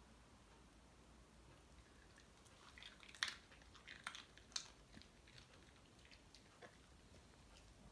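Pomeranian crunching a dog biscuit: a cluster of sharp crunches starting about three seconds in, the loudest first, then a few fainter chews.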